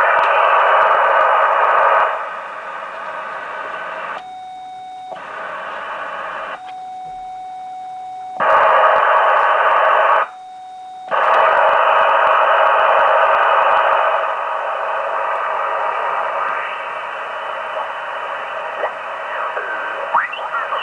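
Receiver hiss from a Yaesu HF transceiver on the 20 m band, heard through its speaker, dropping about two seconds in. Three times the hiss cuts out and a steady mid-pitched tone is left. Near the end, faint whistles and chirps of stations glide past as the tuning knob is turned.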